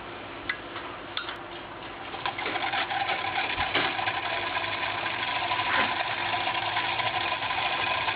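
Homemade electric motor with a rotor of copper-wire coils: a few clicks as it is started by hand, then it spins up within about two seconds to a steady, rapid mechanical clatter.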